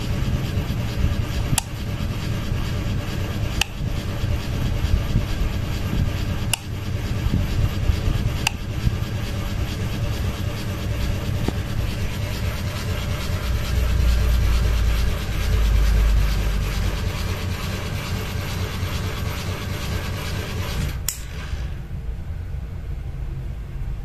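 Wobbling ceiling fan running: a steady rubbing whirr over a low rumble, with a sharp tick every two to three seconds. Near the end there is a click and the higher part of the sound falls away.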